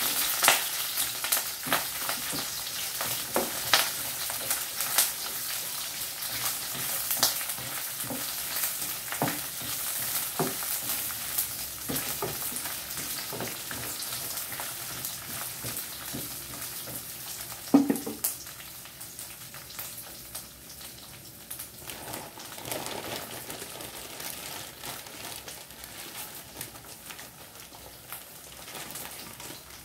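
Food sizzling in a frying pan over a gas burner while a wooden spatula stirs it, scraping and clicking against the pan. The clicks thin out and the sizzle gets quieter in the second half, with one louder knock about 18 seconds in.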